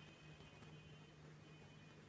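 Near silence: a faint steady hiss of oil sizzling around coated fish pieces deep-frying in a pan, with a low steady hum underneath.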